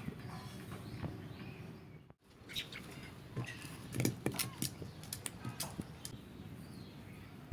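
Short high chirps from a small animal, with a cluster of sharp clicks and taps in the middle. The sound drops out completely for a moment about two seconds in.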